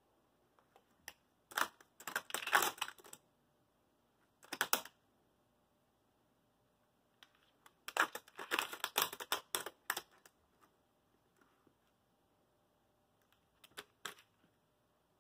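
Dogs' paws pressing and scrabbling at a laptop keyboard, the keys clattering in four quick bursts, the longest about two seconds.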